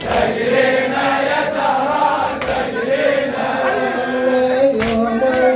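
A crowd of mourners chanting a Shia latmiyya lament in unison, with a sharp collective chest-beating strike about every two and a half seconds.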